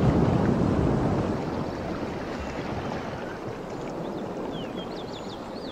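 Surf washing onto a sandy beach at a river mouth: a steady rushing that slowly eases, with a few faint bird chirps in the second half.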